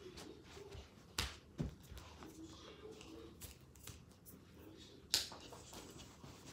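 A few sharp knocks and taps, the loudest about five seconds in, over quiet room tone with faint voices in the background.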